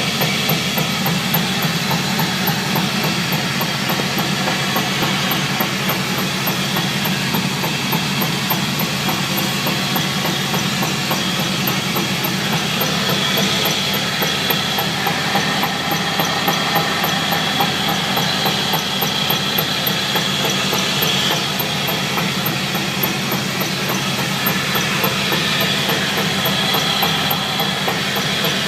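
2004 Chevrolet Silverado pickup running, a steady drivetrain and road rumble with hiss and no single knock standing out. The truck has a clunk whose cause the owner cannot find, even with a new driveshaft and new u-joints.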